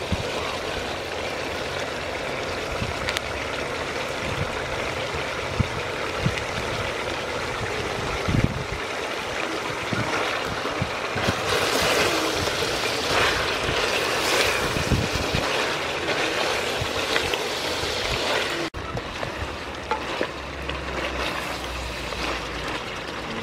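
Chicken curry sizzling steadily in an aluminium pot over a charcoal fire, while palm fruit slices are stirred in with a wooden spatula that scrapes and knocks against the pot now and then, busiest around the middle.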